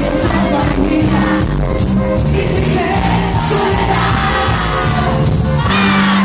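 Live cuarteto band music with a steady beat and a voice singing, the crowd audible underneath.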